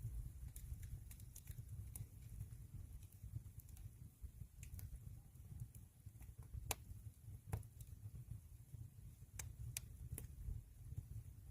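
Wood fire burning in a traditional Korean agungi firebox: a low rumble of flame, with scattered sharp crackles and pops from the burning wood. One pop, about seven seconds in, is the loudest.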